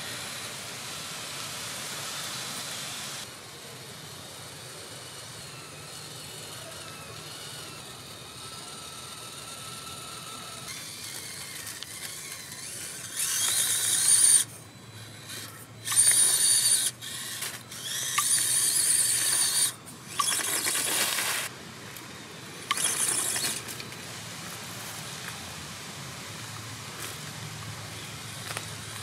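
The small electric drive motor and gearbox of an FMS FCX24 Lemur 1/24-scale RC rock crawler whining high in short bursts as the throttle is worked, six bursts of about half a second to two seconds each in the middle of the stretch. A steady outdoor hiss lies underneath.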